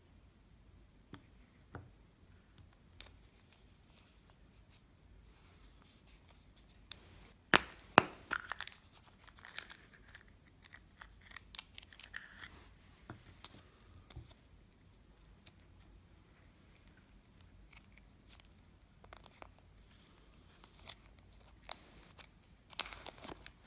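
Small plastic clicks and taps as a Kinder Surprise's yellow plastic toy capsule is handled, with two sharp snaps about eight seconds in as the capsule is prised open. Near the end there is a burst of crinkling and tearing as the foil-and-paper toy packet is opened.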